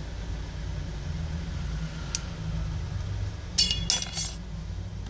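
A steady low hum, with a short cluster of small hard clicks and clinks about three and a half seconds in, as a phone motherboard is handled and turned in the hand.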